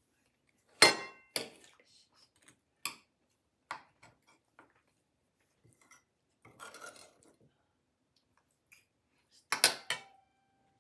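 Cutlery and dishes clinking on the table: a sharp clink about a second in, a few lighter taps and a soft scrape, then another sharp clink near the end that leaves a short ringing tone.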